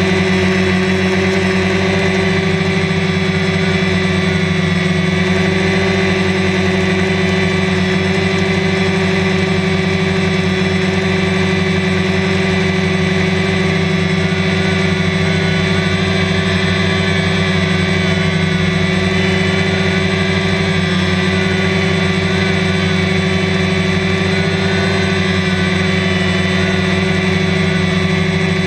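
A camera drone's electric motors and propellers hum steadily in flight, heard from the camera on the drone itself. The pitch stays almost level throughout.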